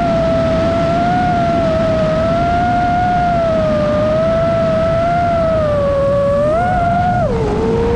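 Motors and propellers of an iFlight Nazgul5 Evoque 5-inch FPV quadcopter whining in flight, the pitch wavering gently with throttle, then dropping sharply about seven seconds in.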